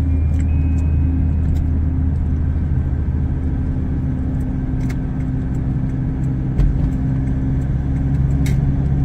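Steady low drone of engine and tyre noise inside a moving car's cabin, with a few faint ticks.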